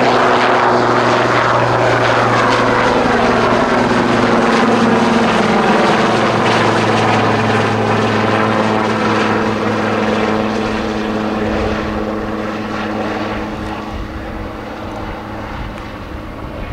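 Sikorsky S-76C+ helicopter passing close by and climbing away, with loud rotor and twin-turbine noise. Its steady tones drop in pitch a few seconds in as it goes past, and the sound fades gradually over the last several seconds.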